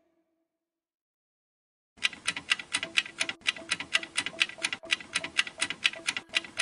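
Near silence for about two seconds, then a countdown-timer clock-ticking sound effect: fast, even ticks at about five a second.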